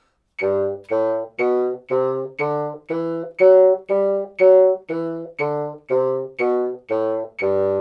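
Bassoon playing a one-octave G major scale from low G up and back down, fifteen detached notes each about half a second long. A metronome clicks steadily about twice a second under the notes.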